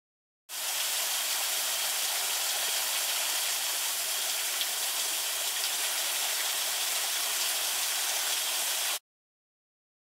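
Small waterfall spilling from a rock overhang and splashing onto the rocks below, a steady rushing hiss. It starts suddenly about half a second in and cuts off suddenly near the end.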